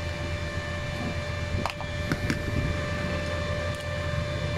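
Ingco inverter welding machine powered on and running, its cooling fan making a steady hum with a thin steady whine over it. A few light clicks sound about halfway through.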